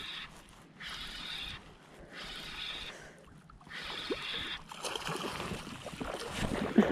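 A small hooked European sea bass splashing at the surface as it is reeled in, over a rhythmic swishing about once a second. The splashing grows louder in the second half.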